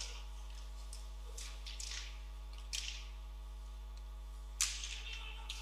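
Ice hockey play in a near-empty rink: skate blades scraping and swishing on the ice, with a sharp crack about four and a half seconds in, over a steady low hum.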